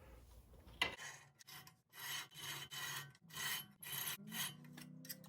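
A screwdriver tip scraping rust scale off the edge of a 2009 Honda CR-V's front brake rotor as the rotor is turned, in repeated short scraping strokes starting about a second in. This rust build-up rubbing on the dust shield is the cause of the brake grinding noise, not worn brakes.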